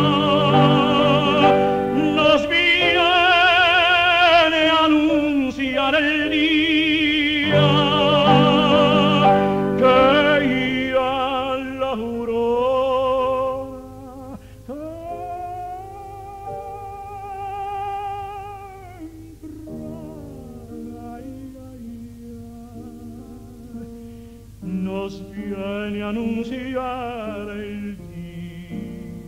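Operatic tenor voice singing long held notes with a wide, even vibrato. It is loud for the first half and clearly softer from about fourteen seconds in.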